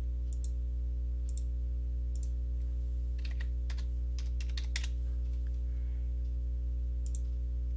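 Computer keyboard typing and clicking in scattered short bursts, most of them in the middle, over a steady low hum.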